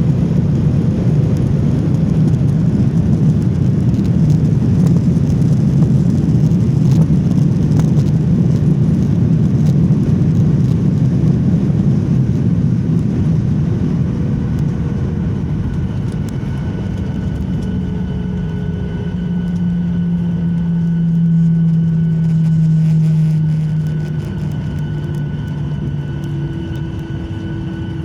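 Airliner cabin noise on landing: a loud, low rumble that eases after about fourteen seconds. Steady engine tones then come through, some slowly falling in pitch as the jet slows.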